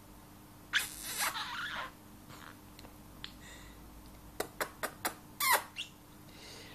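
Pet budgerigar chattering close to the microphone: a scratchy burst about a second in, a quick run of five sharp clicks a little past the middle, then a short loud chirp.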